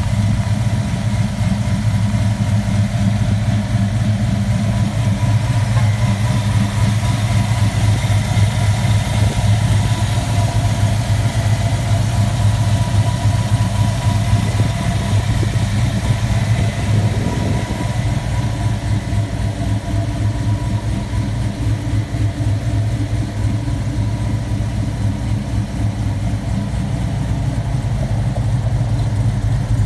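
LS-swapped 6.0-litre V8 with a TVS1900 supercharger and a stage 2 blower cam, idling steadily in a short school bus.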